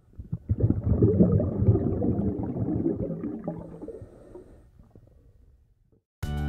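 Low, gurgling underwater bubbling that fades away over several seconds. Music starts near the end.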